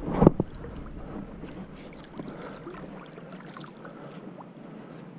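Water swirling and lapping at the weedy bank as a hooked wels catfish moves at the surface, with a short loud thump just after the start. Faint wind on the microphone underneath.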